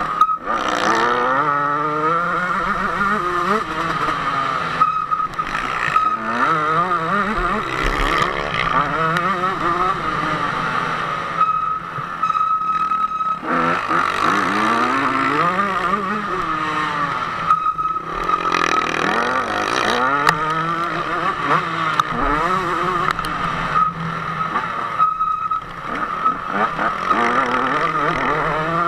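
KTM 150 SX two-stroke motocross engine revving hard, its pitch climbing and dropping back over and over as the throttle is opened and shut through the turns and jumps, with a few brief lulls when the throttle is closed.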